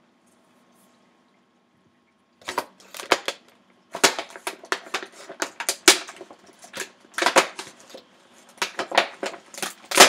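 Thin clear plastic clamshell container crackling and clicking as it is handled, in irregular sharp snaps that start about two and a half seconds in.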